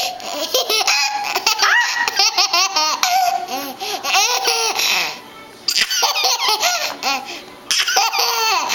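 Baby laughing hard in repeated bouts of giggles, with a short pause about five seconds in.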